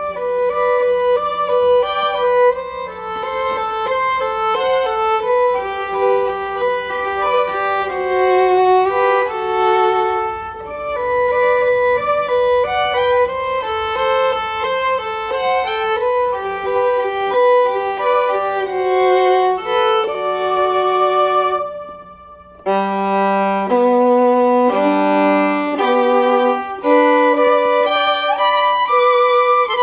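Background music led by a violin melody, dropping away briefly about two-thirds of the way through before picking up again.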